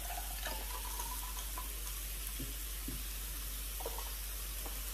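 Meat sizzling steadily on a tabletop electric grill and hotpot. In the first second or so, soda is poured from a can into a glass.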